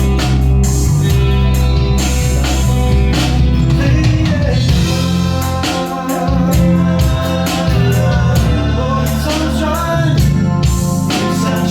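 Small rock band playing a song, with electric guitar, bass guitar and drum kit carrying sustained chords under a steady beat, and some singing.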